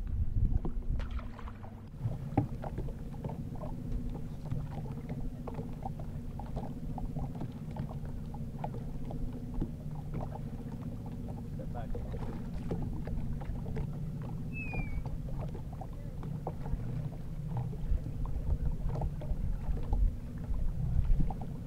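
Small boat's motor running steadily at trolling speed, a low hum with a constant tone, with scattered light knocks. A short high chirp about two-thirds of the way through.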